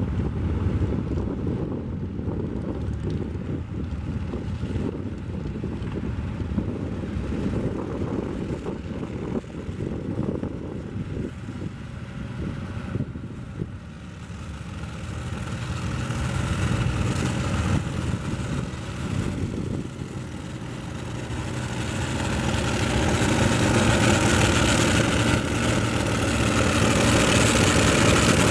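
A Farmall 480 tractor's engine running under load as it pulls a weight-transfer sled over the dirt. It grows steadily louder from about halfway through as the tractor draws near.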